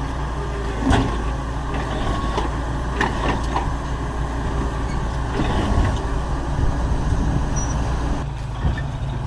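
Heavy diesel earthmoving machinery running steadily, a low engine drone with scattered metallic clanks and knocks, the loudest about a second in.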